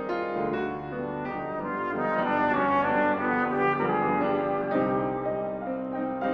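Cornet and piano playing together: the cornet moves through a line of sustained notes over the piano accompaniment.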